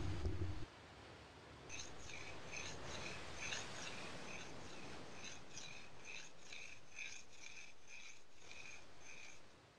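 A low steady hum cuts off suddenly just under a second in. Then a soundtrack ambience of high chirps, as from crickets, repeats about two to three times a second over a steady hiss, ending shortly before the close.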